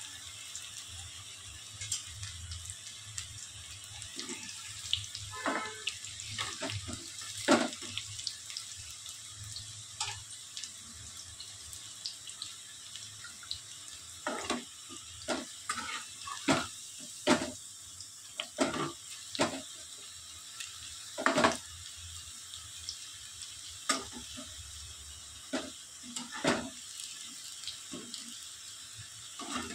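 Potato pakoras deep-frying in hot oil: a steady sizzle, with scattered sharp knocks and clinks over it, most of them in the second half.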